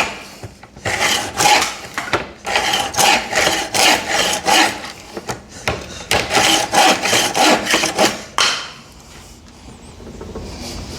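Hand saw cutting through wood in steady back-and-forth strokes, about two a second, stopping about eight and a half seconds in.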